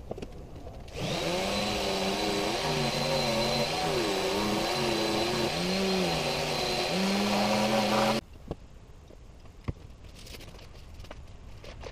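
An electric power tool starts about a second in and runs for about seven seconds with a steady high whine, its low hum wavering up and down in pitch, then cuts off suddenly.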